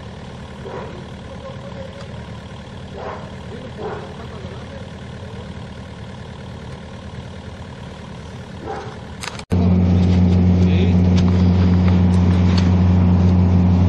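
Diesel engine of a John Deere 50D mini excavator idling steadily. About two-thirds of the way through, after a brief dropout, it becomes much louder: a steady low drone.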